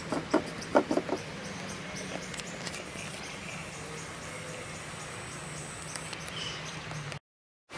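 A few light taps in quick succession in the first second or so, a fingertip knocking on a wooden board, over a steady faint hum. The sound cuts out abruptly near the end.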